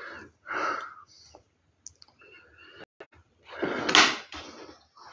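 Paper-backed appliqué fabric and paper pattern sheets rustling and sliding on a table as they are handled: several short rustles, the loudest about four seconds in.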